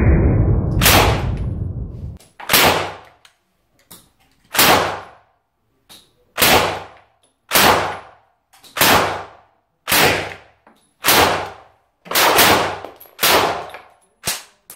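Semi-automatic civilian PPSh-41 submachine gun in 7.62×25 mm Tokarev fired shot by shot, about a dozen single shots roughly a second apart, each with a short ringing echo. It opens on a loud, muffled rush of noise that fades over the first two seconds.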